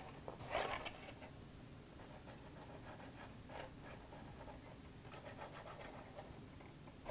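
Faint scratching and rubbing of cardstock being handled as a glue bottle's nozzle is drawn along the paper tabs, with one brief louder handling noise about half a second in.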